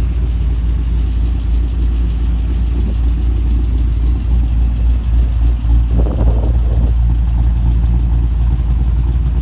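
Holden Commodore SSV's 6.0-litre V8, fitted with an aftermarket performance camshaft, idling steadily.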